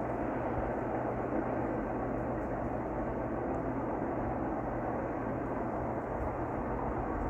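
Empty intermodal freight train running past at speed in the distance: a steady rumble of wheels on rail that neither rises nor fades.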